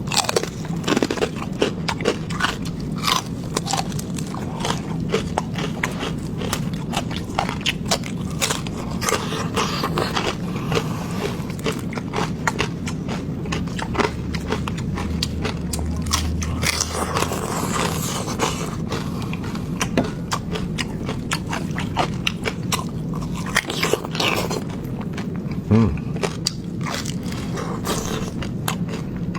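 A person biting into and chewing pork fat, with many sharp crunchy clicks throughout.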